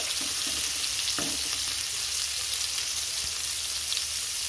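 Chopped tomato and whole spices sizzling steadily in hot oil in a kadai over a medium gas flame.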